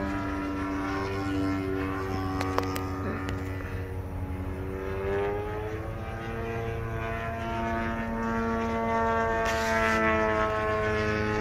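Radio-control model airplane flying overhead, its motor and propeller giving a steady drone whose pitch sags slightly and then rises again about halfway through as the throttle changes.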